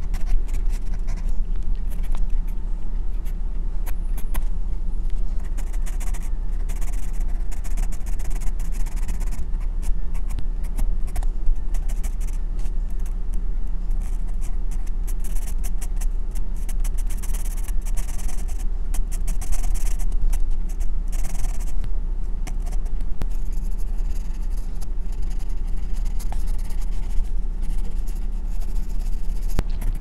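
Graphite pencil scratching across drawing paper in quick sketching and shading strokes, over a steady low hum.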